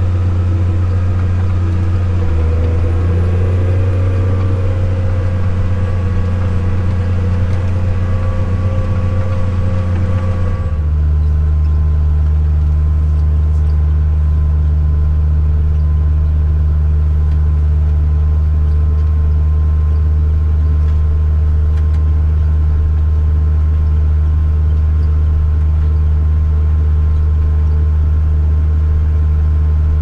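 Tractor engine running steadily, heard from inside the cab as a loud, even drone. About ten seconds in, the drone drops abruptly to a lower steady pitch.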